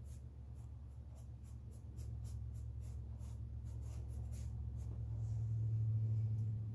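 Small paintbrush stroking paint onto a stretched canvas: a quick run of short, soft scratches, about four a second, that stops about five seconds in. A low hum grows louder near the end.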